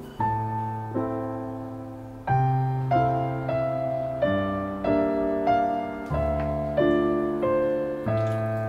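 Background piano music: gentle chords struck less than a second apart, each ringing and fading before the next.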